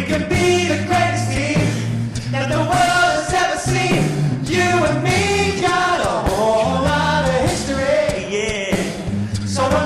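Male a cappella group singing wordless close harmonies over a sung bass line that steps between held low notes, with sharp vocal-percussion clicks running through.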